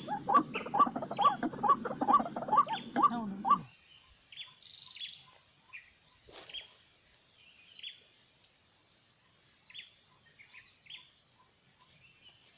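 White-breasted waterhen (ruak-ruak) calls, a harsh call repeated about two to three times a second over a low hum; both cut off abruptly about three and a half seconds in. After that, only faint scattered chirps and a steady high insect hiss.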